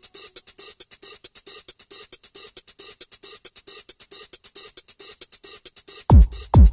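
Electronic dance music on the soundtrack: a breakdown of fast, even hi-hat ticks alone, with a deep kick drum coming back in near the end.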